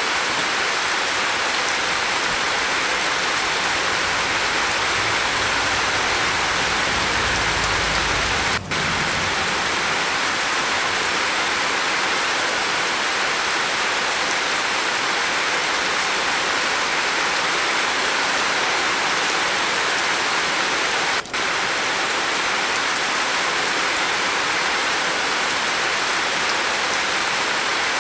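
Steady rain falling on a roof, an even hiss with no let-up. It breaks off for an instant twice, about nine and twenty-one seconds in, and a faint low rumble sits under it around eight seconds in.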